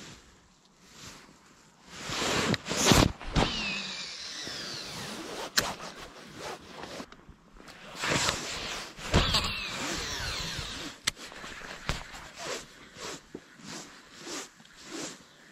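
Baitcasting reel (Okuma Citrix) casting and retrieving a lure: the spool whines as line pays out twice, with a ratchety zipping as the handle is wound in between.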